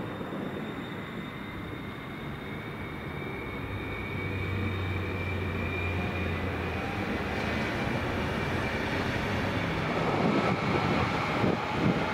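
Koleje Śląskie EN75 (Stadler FLIRT) electric multiple unit pulling through the station, its traction equipment giving a thin electric whine that rises slowly in pitch as it gathers speed. In the last couple of seconds the noise of the wheels on the rails grows louder and rougher.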